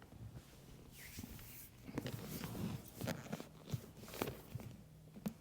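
Rustling and soft knocks of a patient being moved and stretched on a chiropractic treatment table, with a few short sharp clicks, the clearest near the end.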